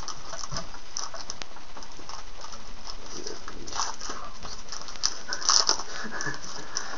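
Foil trading-card pack being torn open and its cards handled: short crinkling rustles about four and five and a half seconds in, over a steady hiss.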